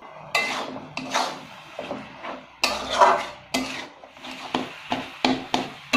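Long metal spatula stirring and scraping a grated-coconut filling against an aluminium kadai, in repeated strokes about two a second.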